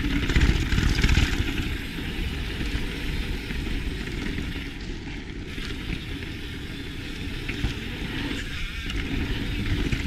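A mountain bike rolling fast down a dirt and gravel trail: tyre noise and rattling of the bike, with wind rushing over the microphone. Loudest in the first second or so, then steadier.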